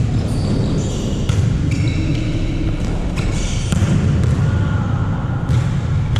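Volleyball play in a sports hall: sharp ball hits and short high sneaker squeaks on the court floor, over a steady low rumble of hall noise.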